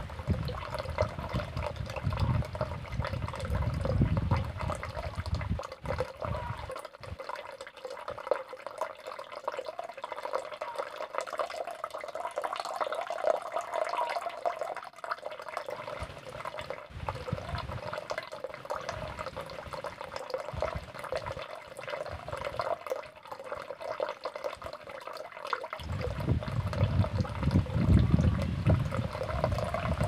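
Steady running water. A low rumble comes in under it at the start and again over the last few seconds.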